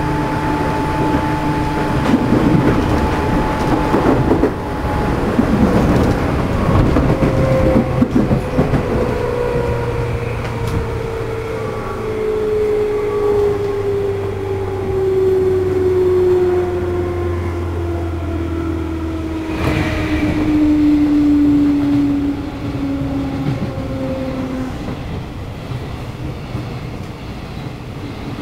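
JR East 211 series motor car's externally fanned traction motor whining steadily downward in pitch as the train brakes and slows, with clatter of wheels over rail joints in the first several seconds and a single clunk about twenty seconds in.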